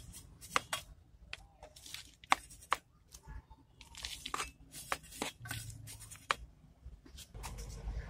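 Garden trowel scooping and scraping dry soil in a plastic pot: a quick, irregular run of gritty scrapes and crunches. Near the end comes a softer rumble as soil tips into the pot.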